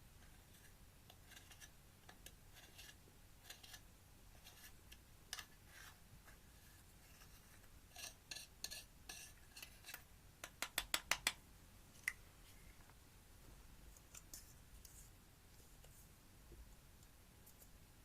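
Slime being handled: scattered soft clicks and crackles, then a quick run of about eight sharp clicks about ten seconds in.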